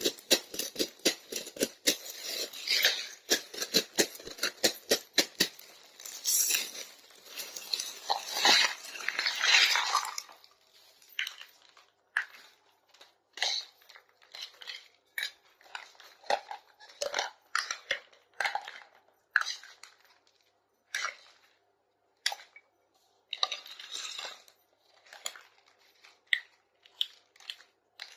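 Packaging being torn and crinkled, with many sharp clicks, for about the first ten seconds. After that come scattered light clicks and taps of small plastic toy kitchenware being handled.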